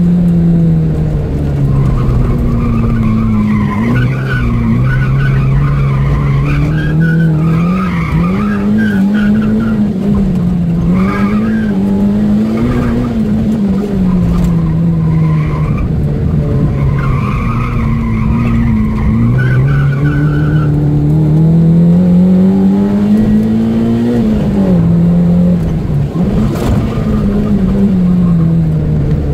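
Opel Astra GSi's engine revving up and dropping back through the gears as it is driven hard around a tight circuit, heard from inside the car. Tyres squeal again and again through the corners.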